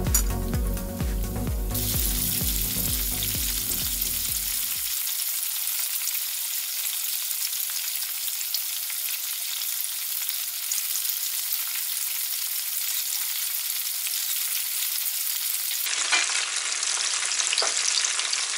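Samosas deep-frying in a pan of oil: a steady high sizzle of bubbling oil around the pastry. Background music fades out in the first few seconds.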